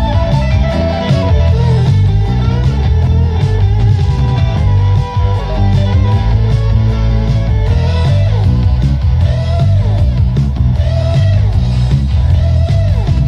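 Rock music with electric guitar.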